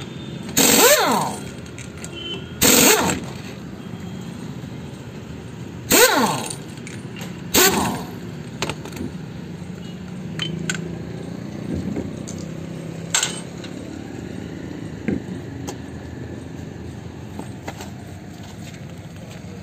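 Air-powered (pneumatic) impact wrench or wheel tool run in four short bursts over the first eight seconds, each with a hiss of air and a whine that rises and falls in pitch. After that only a low background with a few faint clicks.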